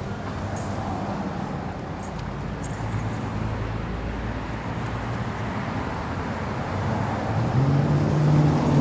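Steady road traffic noise, with a low engine hum growing louder near the end as a vehicle comes closer.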